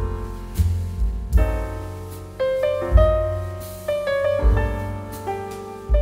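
Background music led by piano: struck notes that ring and die away, a few each second, over low bass notes.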